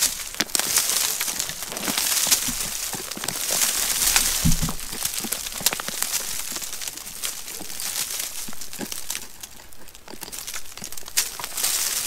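Hands scraping and picking at a crumbly, mossy rock face, with a steady run of small crackles and clicks as soil and grit break away, and one dull low bump about halfway.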